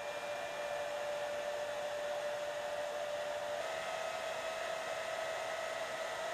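Cooling fan of the Weberneedle Endo laser system running: a steady whir with a faint whine, which steps up slightly in pitch about three and a half seconds in.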